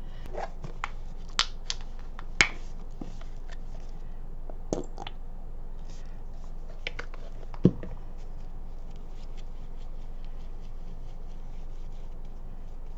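Small clicks and taps of craft work on a tabletop: paper photocopies being shifted and a plastic tube of matte gel medium squeezed and handled, with one sharp knock about eight seconds in as it is set down. Afterwards only faint light ticks as a paintbrush starts spreading the medium over the print.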